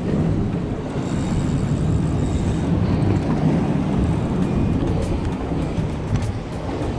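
Steady wind rumble on the microphone and water washing over jetty rocks, with a spinning reel's drag giving line in scattered clicks as a hooked fish runs, the clicks coming more often in the second half.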